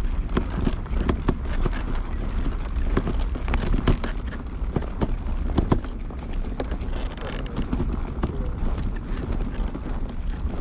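Footsteps of someone walking, short knocks at an uneven pace of about two a second, over a low rumble of wind on the microphone.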